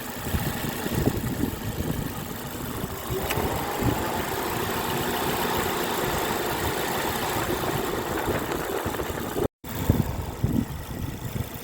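2005 Toyota Corolla's 1.8-litre four-cylinder engine idling steadily under test for an intermittent misfire at idle. A steady whine joins about three seconds in, and the sound cuts out briefly near the end.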